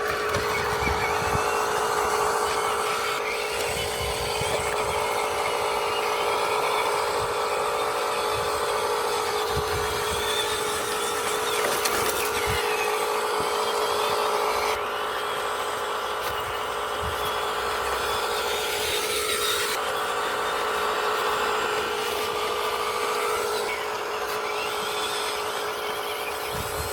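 Small electric motors and gear drives of a radio-controlled construction model whining steadily, with a brief dip and rise in pitch about twenty seconds in.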